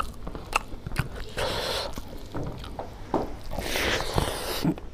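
Fingers mixing and scooping rice and pork curry on a banana leaf, with two longer scraping rustles across the leaf and scattered short wet clicks as the food is taken up and eaten.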